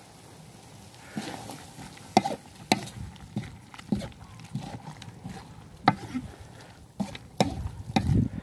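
A wooden spatula clacking and scraping against a large wok while octopus and vegetables are stir-fried. The sharp, irregular knocks start about a second in.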